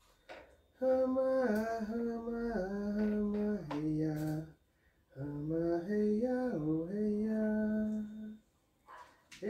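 A single voice singing a slow chant in long held notes that slide between pitches, in two phrases with a short pause between them. A few short clicks come through in the gaps.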